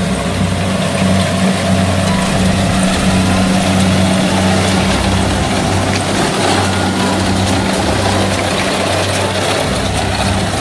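Kubota rice combine harvester running steadily as it cuts standing rice: a constant low engine drone with the clatter of its cutting and threshing machinery over it.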